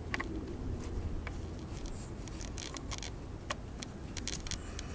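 Small scattered clicks and rustles of a gloved hand working a camshaft position sensor onto its locating peg, growing busier in the second half.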